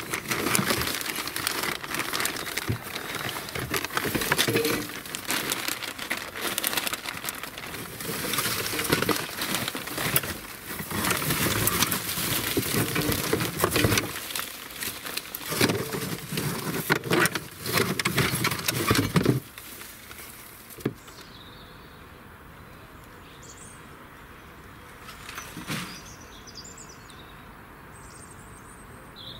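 Polythene sheeting and plastic cloches crinkling and rustling as they are pulled out of a plastic storage box along with garden netting, with scattered clicks and knocks. About two-thirds in, the rustling stops and only a quiet outdoor background remains, with a few faint high chirps.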